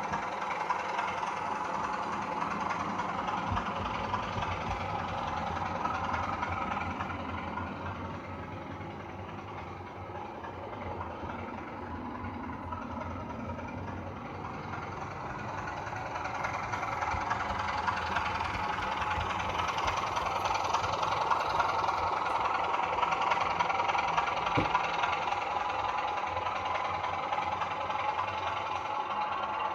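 DCC sound decoder in a Heljan OO gauge Class 27 model locomotive playing a diesel engine sound through its small speaker, running steadily. The engine sound drops back about a third of the way in, then builds up again.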